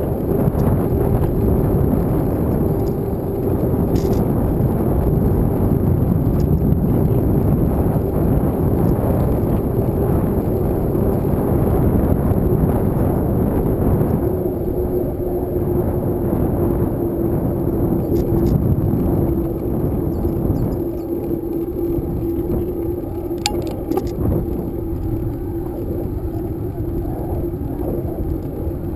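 Wind buffeting the microphone of a camera on a moving bicycle, over the rumble of tyres rolling on asphalt. A steady hum runs underneath and drops slightly in pitch about halfway through. A few light clicks or rattles come about four seconds in and again near the end.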